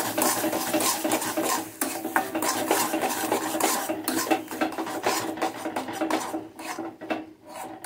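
Metal spatula stirring and scraping thick, nearly dry mashed flat-bean paste around a metal kadai, in quick irregular rasping strokes with a short pause near the end.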